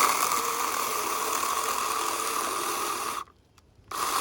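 Yard Force 24V cordless handheld chainsaw running with a steady high whine. It stops about three seconds in and starts again under a second later, as the trigger is released and squeezed again.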